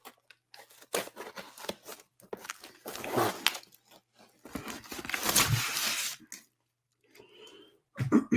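Packaging being torn open and crinkled by hand, in several short bursts of tearing and rustling, the longest near the middle lasting about a second and a half.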